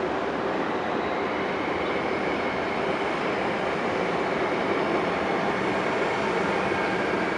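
DB class 120 electric locomotive hauling Intercity coaches slowly into the platform: a steady rolling rumble with a faint high whine, growing a little louder as it approaches.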